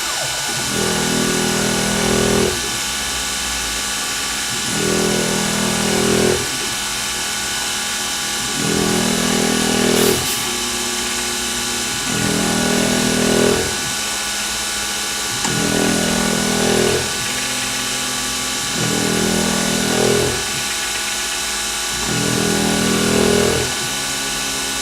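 CNC-converted PM-25 benchtop milling machine running with a steady high whine. A lower motor hum comes in repeated passes about 1.5 s long, roughly every three and a half seconds, each ending with a brief swell in loudness.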